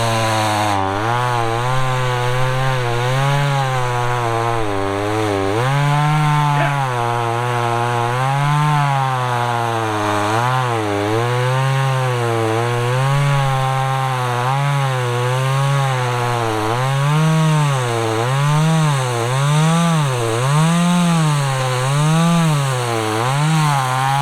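Two-stroke chainsaw cutting through a log at full throttle, its engine pitch dipping and recovering again and again as the chain bogs in the wood, the swings coming faster in the second half.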